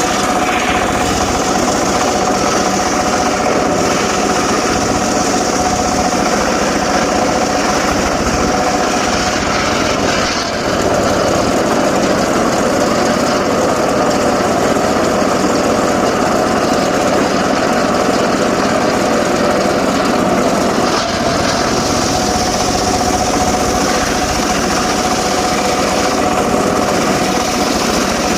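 Homemade engine-driven circular saw rig running steadily, with a constant whine over the engine noise and a brief dip in level about ten seconds in.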